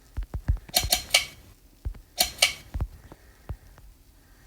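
Pull chain of a Hampton Bay Landmark III Plus ceiling fan being pulled to switch it from low to medium speed: two quick bursts of sharp clicking and chain rattle, about a second apart, among soft handling thumps.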